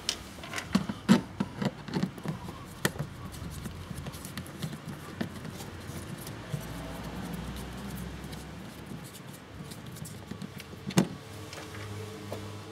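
Sharp clicks and knocks of a screwdriver and hard plastic trim being handled while the screws of a car's plastic cowl cover below the windscreen are undone. A burst of clicks comes in the first three seconds, quieter handling noise follows, and one loud click comes near the end.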